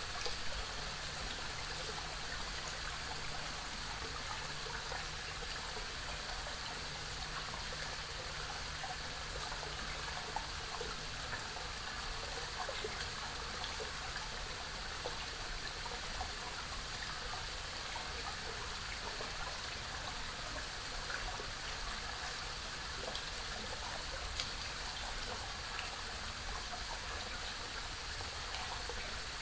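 Small forest waterfall on a creek, water splashing and rushing steadily.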